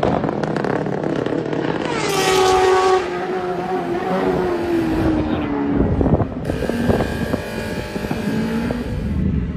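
A superbike racing motorcycle passes at high speed, loudest about two seconds in, its engine note dropping in pitch as it goes by and fades. More engine sound follows.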